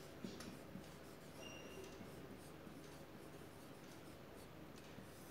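Faint strokes of a marker pen writing on a whiteboard.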